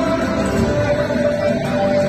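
Music with held melodic notes over a dense low accompaniment.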